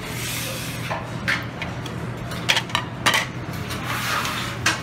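Serving tongs clicking against a plate and serving trays, a few separate sharp clicks, over a steady low hum.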